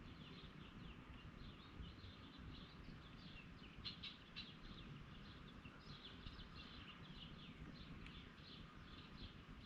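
Faint birdsong: many short, quick chirps from small birds, overlapping throughout, over a low background rumble.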